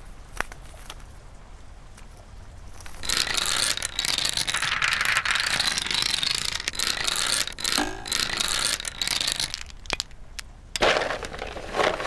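A single light tap, then from about three seconds in a loud, dense clatter of clicking, rattling and whirring from mechanical toys, dropping away briefly near the end.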